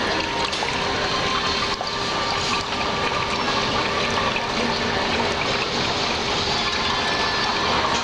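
Water trickling and splashing steadily in a tabletop crystal-ball water fountain as it overflows the ball and runs down the rock bowl, with a faint steady hum underneath.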